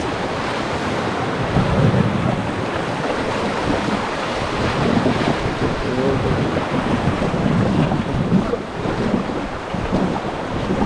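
Steady rush of river whitewater flowing around a raft, with wind noise on the microphone.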